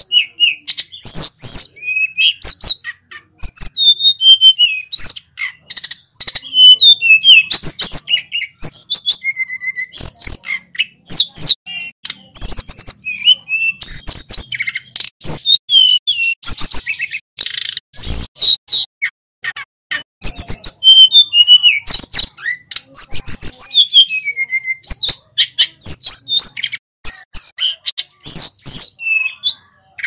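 Male sulingan gunung (a blue-and-orange flycatcher) singing hard, with a near-continuous run of varied high whistles, quick trills and sharp chips, broken only by brief pauses.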